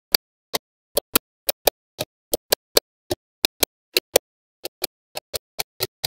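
Small magnetic balls clicking as they snap onto one another one at a time. The clicks are sharp, come about three or four a second, and often fall in quick pairs.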